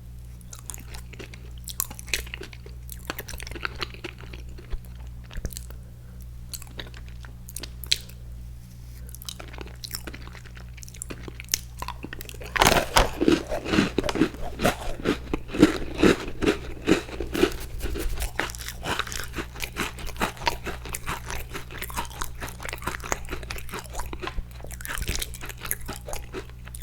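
Crunchy Icee sandwich cookie being bitten and chewed close to the microphone. There are soft, scattered chewing clicks at first, then loud, dense crunching about halfway through.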